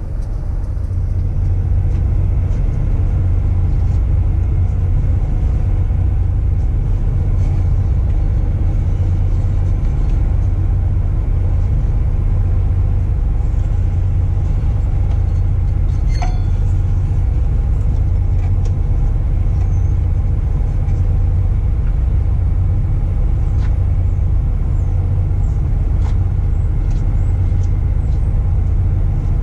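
Steady low rumble of an idling engine, with a single metallic clink about sixteen seconds in.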